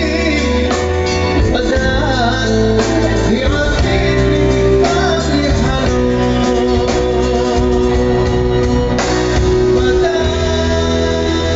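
Music: a song with singing over guitar and a steady bass.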